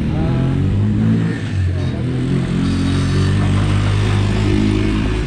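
A motor vehicle engine running steadily, with small rises and falls in pitch.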